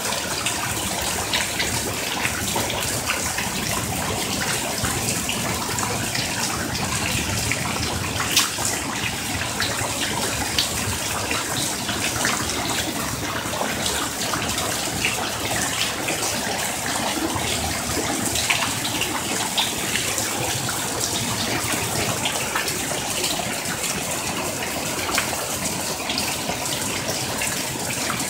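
Heavy thunderstorm downpour: a steady rush of rain on a flooded concrete patio and a swimming pool, with water pouring off the roof edge. Sharp drip and splash taps come all through it.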